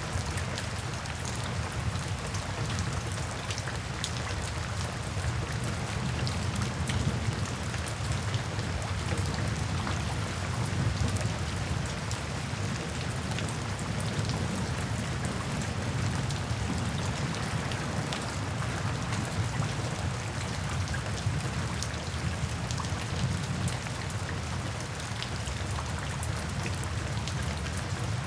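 Steady rain falling, with many small close drop hits over a constant low rumble.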